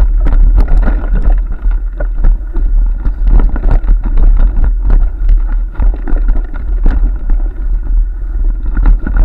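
A bicycle-mounted action camera jolting down a rough, bumpy trail: constant rattling and knocking of the bike and camera mount over roots and stones, with heavy wind rumble on the microphone.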